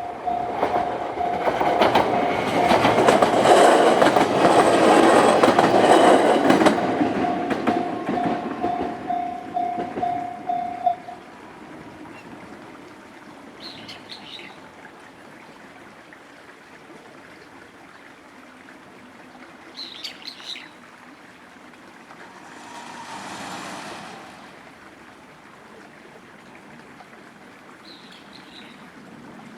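A Japanese railway level-crossing alarm rings in steady rapid repeats while a train passes over the crossing, its wheels clattering over the rail joints. The train is loudest in the first several seconds and fades, and the crossing bell stops about eleven seconds in. A few short bird chirps follow.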